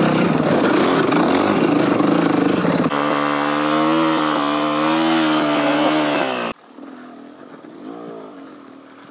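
Enduro dirt bike engines, a Beta Xtrainer 300 two-stroke and a Yamaha WR450 four-stroke, running and revving close up, with a steady engine note that wavers slightly in pitch. About six and a half seconds in the sound cuts to a much quieter engine with a short rev that rises and falls.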